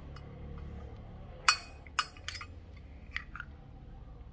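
A handful of sharp metallic clicks and clinks from a brass Zippo lighter being handled, its steel insert and case knocking together. The loudest click comes about a second and a half in, and four lighter ones follow over the next two seconds.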